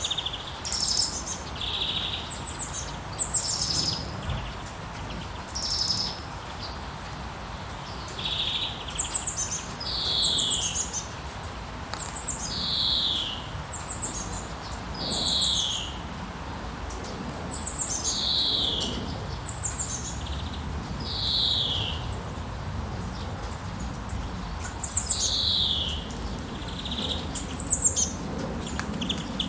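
A songbird singing the same short phrase over and over, every two to three seconds: a few high notes then a clear falling slur. Under it runs the steady hiss of gentle rain.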